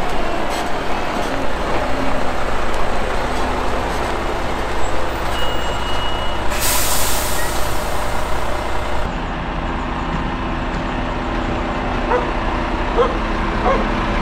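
Liebherr mobile crane's diesel engine running steadily, with a loud hiss of air from its air brakes lasting about two and a half seconds partway through.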